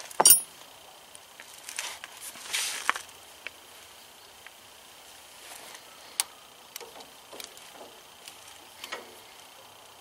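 Hand tools and small metal parts being handled: scattered clicks and clinks with a few short rustling scrapes. The loudest is a sharp sound just after the start.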